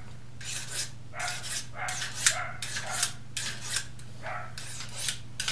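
A small knife blade being honed on a sharpening steel: quick metal-on-metal scraping strokes, about two a second, putting a keen edge on a new blade.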